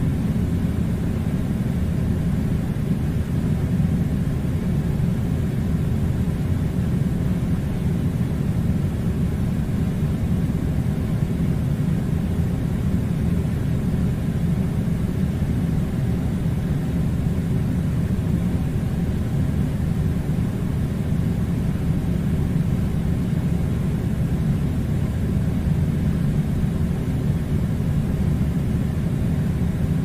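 Air conditioner running with a steady low rumble of blowing air that does not change.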